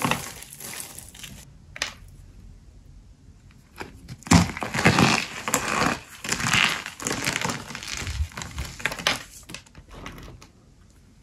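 Dry soap crunching and crackling as it is crushed and cut: a dense crackle at the start, a quieter stretch, then a run of loud crunchy bursts from about four seconds in that fades out near the end.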